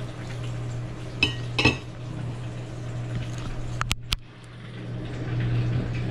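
Steel kitchen knife clinking against a ceramic plate as it is handled and set down, two clatters close together about a second and a half in. A couple of sharp clicks follow near the middle, over a steady low hum.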